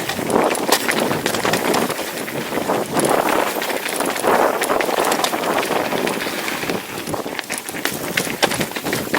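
Wind buffeting the camera microphone as a mountain bike rides over a dirt trail, with tyre noise and frequent small clatters from the bike.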